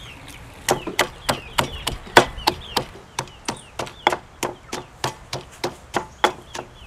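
Stone pestle pounding garlic and chilies in a stone mortar: a steady run of sharp knocks, about three a second, starting under a second in.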